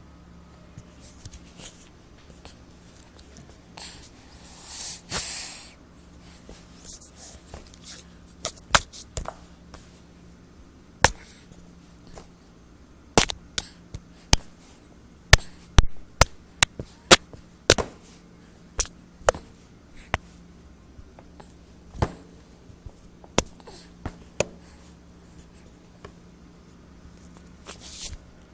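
A baby hiccupping: short sharp hics at irregular intervals, coming thickest about halfway through, with one longer breathy huff about five seconds in.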